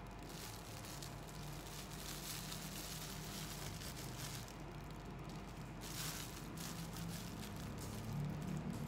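Rustling and rubbing of a canvas pouch and a crocheted yarn bottle holder being handled, in uneven surges.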